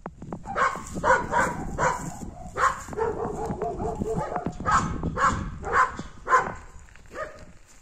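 A dog barking repeatedly in short barks, several close together at times.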